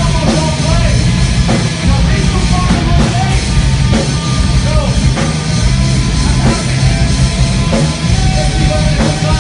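Heavy metal band playing live and loud: electric guitars and a drum kit in a dense, steady wall of sound, with drum hits marking a regular beat.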